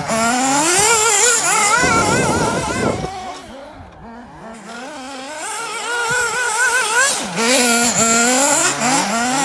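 Kyosho Inferno MP9 TKI4 nitro RC buggy's small two-stroke nitro engine revving, its pitch rising and falling with the throttle. It fades away around the middle, then comes back loud and revving again.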